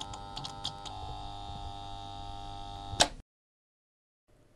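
Short electronic intro sting: a held synthesizer chord with a few light ticks over it, its tones shifting about a second in, ending on a sharp hit about three seconds in.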